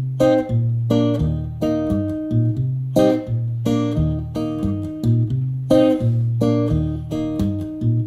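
A recorded song played back through home-built studio monitors and a subwoofer: strummed guitar chords over a heavy bass line, with no vocals in this stretch.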